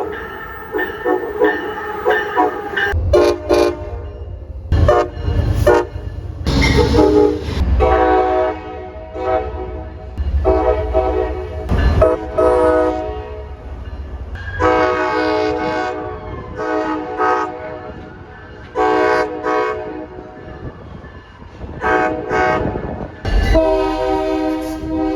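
Locomotive air horn sounding a series of blasts, some long and some short, over the low rumble of a passing train.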